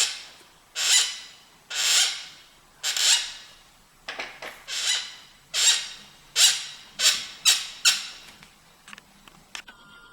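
Tongsheng TSDZ2 e-bike mid-drive motor squeaking and creaking: about a dozen sharp, loud squeaks roughly once a second, coming faster in the middle and stopping about eight seconds in. The noise comes from a cracked torque sensor inside the drive.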